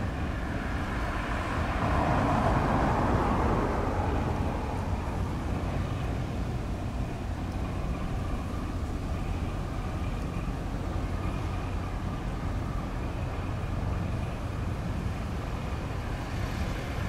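Steady low rumble of distant engines, which swells louder about two to four seconds in and then settles back.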